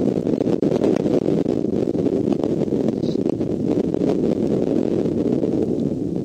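Wind buffeting the outdoor nest-cam microphone: a steady, low, fluttering rumble.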